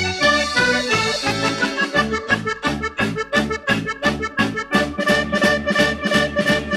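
Background music with a steady, quick beat of about four strokes a second under a sustained melody and bass line.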